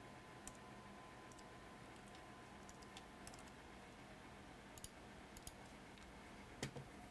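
Sparse, irregular clicks of computer keys over a near-silent room with a faint steady hum; a small cluster of clicks comes about two-thirds through and the loudest pair near the end.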